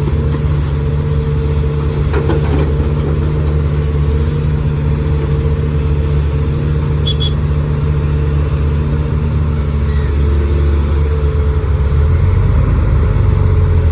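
A heavy machine's diesel engine runs steadily with a steady whine above it, getting a little louder near the end.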